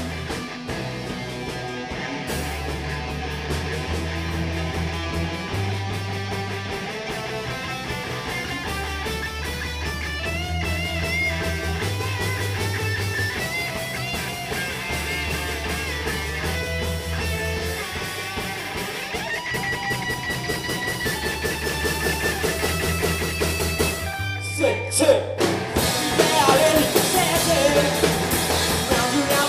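Rock band playing live: two electric guitars, bass guitar and drum kit, with a guitar line of wavering, bent notes over held bass notes. Near the end the band drops out to one held bass note for about a second and a half, then comes back in louder with crashing cymbals.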